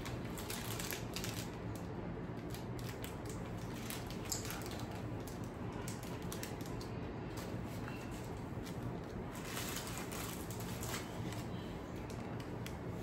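Plastic candy wrappers crinkling and rustling as hands rummage through a tray of packaged candies, in irregular small crackles over a steady low hum.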